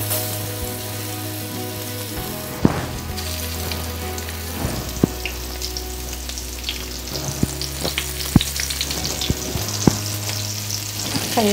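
Spiced potato fries and eggplant pieces sizzling in hot mustard oil on an iron tawa. The sizzle grows fuller about three seconds in as more pieces go in, with a few light clicks of pieces and fingers against the pan.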